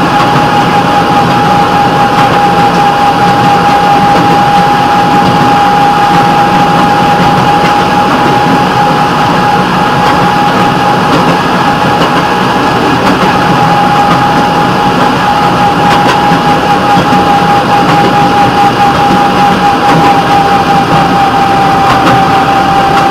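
Rail vehicle running along the track: steady engine and wheel-on-rail running noise with a constant whine throughout.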